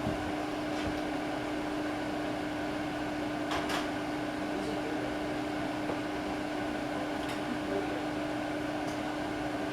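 Tatung hugger ceiling fan running on low speed: a steady motor hum with one clear held pitch, and a faint click about three and a half seconds in.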